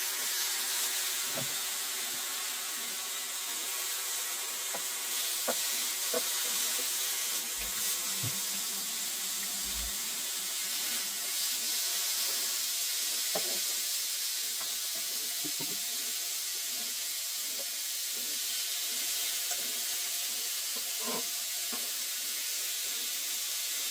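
Breaded chicken strips frying in hot oil: a steady sizzling hiss, with a few faint clicks.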